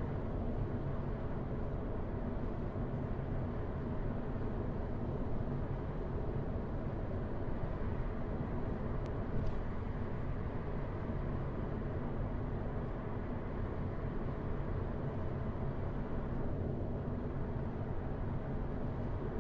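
Steady car road noise heard from inside the cabin while cruising on a city street: a low, even rumble of tyres and engine with no sudden events.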